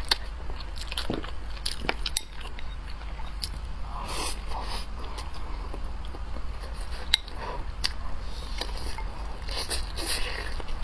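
Close-miked mouth eating sounds: a person chewing and biting food, with scattered wet clicks and smacks and a couple of short slurps, over a steady low hum.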